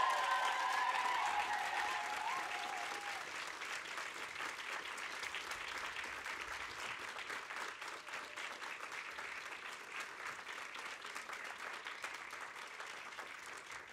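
Audience applauding, loud at first and slowly easing off.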